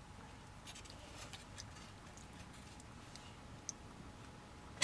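Faint scattered clicks and small rustles of a hand-held circuit board being handled and turned in the fingers, with a sharper click near the end, over a faint steady hum.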